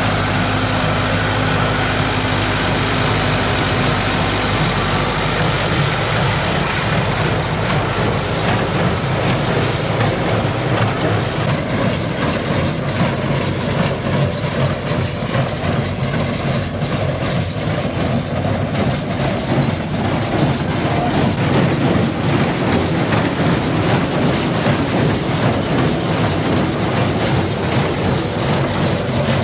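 Tractor engine running steadily, loud and close, starting abruptly.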